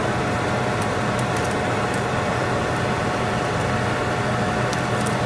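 Steady machine-like hum in a kitchen, with one faint constant tone running through it and a few light ticks.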